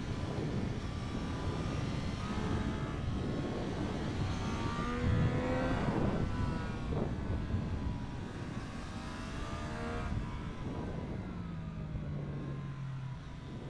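Triumph Street Triple 765 RS inline three-cylinder engine accelerating hard under throttle over steady wind rush. Its pitch climbs twice, then drops to a lower steady note near the end.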